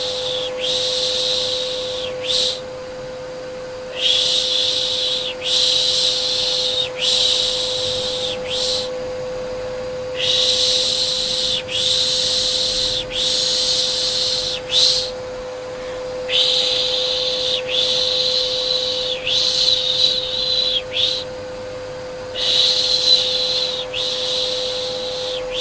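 Repeated 'shh, shh' shushing for soothing a baby, about one shush every second and a half in runs with brief pauses, over the steady hum of a vacuum cleaner.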